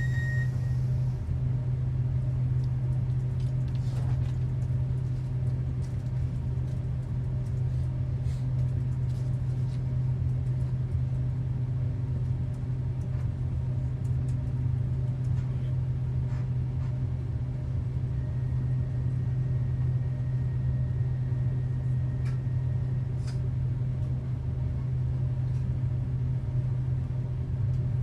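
Interior of a Hitachi electric multiple-unit train: a steady low hum and rumble, with faint scattered clicks and knocks and a faint high tone partway through.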